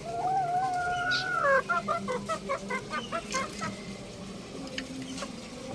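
Young rooster crowing: a long held note for about a second and a half that breaks into a string of short, choppy notes.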